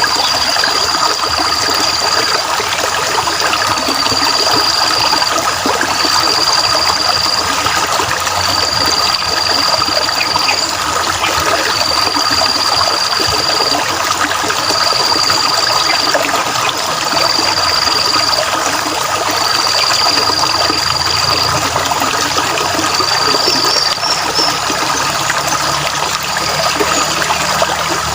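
Water trickling and running steadily, as in a small stream. Over it a high, steady call is held for a second or two at a time and repeated about every two seconds, stopping a few seconds before the end.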